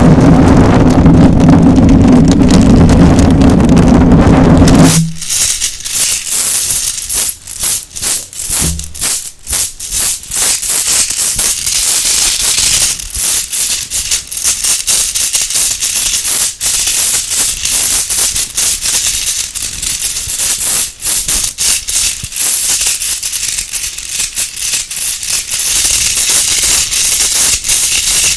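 Small Halloween bone ornaments rattling and clattering against each other and their container, close to the microphone. The first five seconds are a loud steady rushing sound with a low hum. After that comes dense, rapid, irregular clicking.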